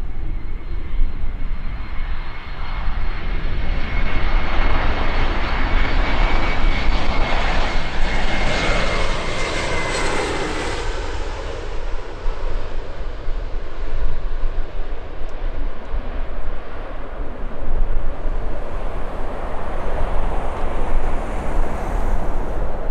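Airbus A321-211 airliner's twin turbofan engines on landing, a jet roar with a high whine that swells to a peak about ten seconds in and drops in pitch as the aircraft passes, then a steady roar continues.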